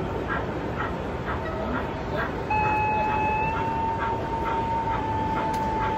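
Sound from a sound-equipped model train on the layout: a long, steady whistle starting about halfway through and holding for about three and a half seconds, over a regular soft beat of two to three a second and the murmur of an exhibition hall crowd.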